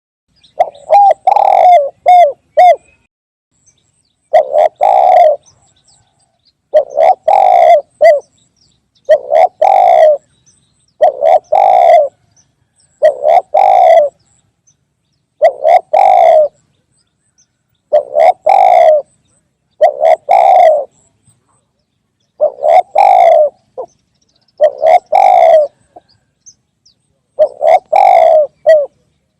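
Spotted dove (tekukur) cooing: a short multi-note coo phrase repeated about every two seconds, with silence between phrases.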